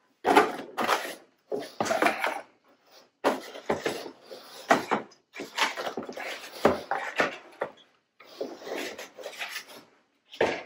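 Cardboard packing inserts scraping and rustling as they are pulled out of a corrugated shipping box and dropped onto a table, in a string of short bursts with brief gaps between them.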